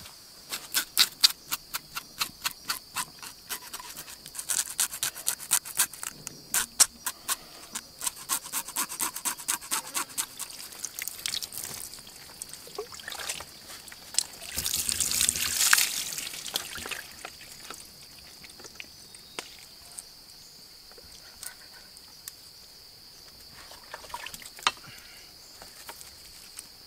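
A fast run of sharp taps and scrapes while a skinned snake is handled, then water splashing and running over the wet snake about fifteen seconds in, with a steady insect drone underneath throughout.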